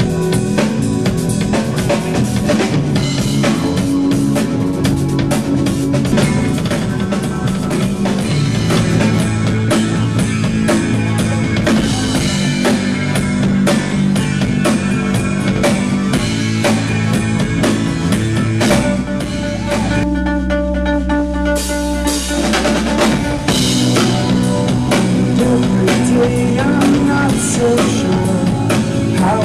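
A live electro-rock band plays a drum-kit beat under synthesizer keyboard and electric guitar. About two-thirds of the way through, the drums drop out for a few seconds, leaving held synth chords over a deep bass note, then the beat comes back in.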